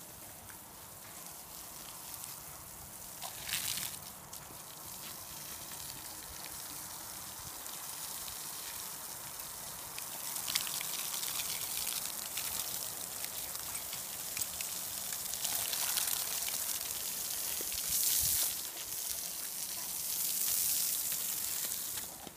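Garden hose spray splashing onto wet paving stones and a St. Bernard puppy. The steady splashing grows louder about ten seconds in and swells several times after that.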